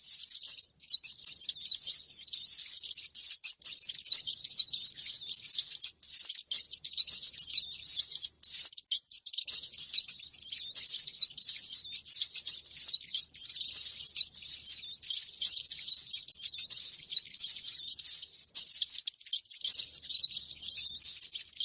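Rats squeaking and chittering in a dense, unbroken stream of high-pitched chirps: a rat-call lure recording played to draw rats to a trap.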